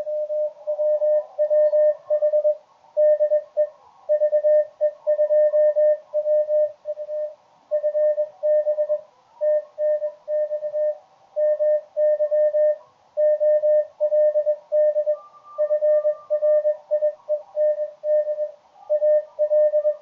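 Morse code (CW) from an amateur radio station on the 20-metre band, received over the air and heard through the radio's speaker as a mid-pitched tone keyed on and off in dots and dashes. The sending is fast and steady, a strong enough signal for the code reader to decode it. About three-quarters of the way through, a fainter, higher second tone briefly joins in.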